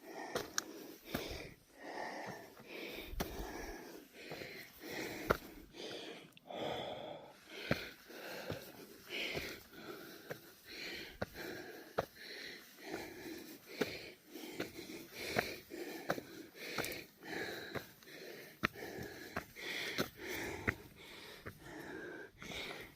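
A person breathing hard and wheezing during a steep uphill hike, with regular in-and-out breaths about one a second.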